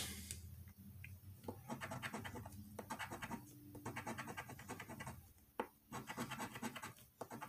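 Coin scratching the silver coating off a scratch-off lottery ticket, faintly, in runs of quick strokes broken by short pauses.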